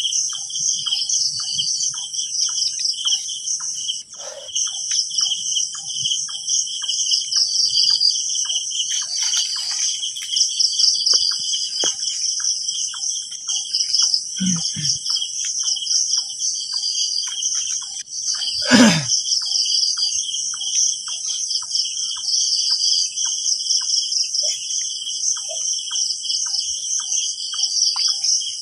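Night insect chorus: crickets trilling steadily in several high pitches, with a softer, lower chirp repeating about twice a second. A single sharp knock stands out about two-thirds of the way through.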